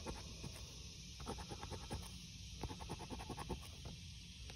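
A coin scraping the coating off a lottery scratch-off ticket: rapid back-and-forth strokes in short bouts with brief pauses between them.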